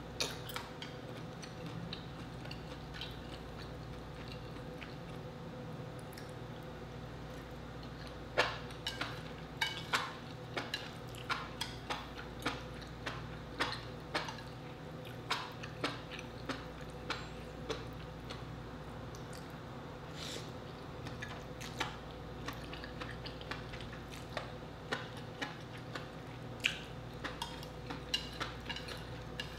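Chopsticks clicking and tapping against a plate as noodles are picked up. The clicks are sharp and come about one or two a second from about eight seconds in, over a steady low hum.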